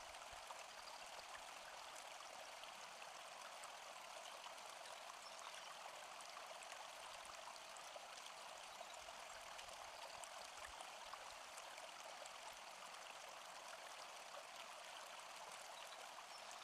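Faint, steady rushing noise with fine crackle through it, like flowing stream water.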